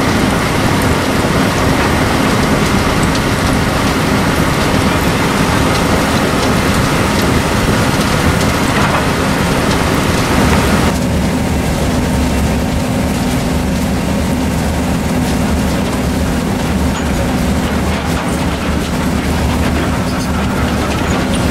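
CRS mobile flip-flow screening plant running: a steady machine drone with a low hum, and the hiss of screened fines pouring off the discharge conveyor onto the stockpile. About halfway through the hiss drops away, leaving mostly the low drone of the plant.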